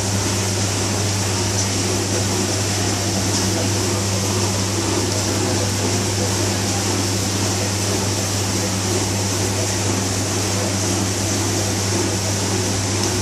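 Steady whirring of kitchen fan machinery with a constant low electrical hum underneath, unchanging throughout.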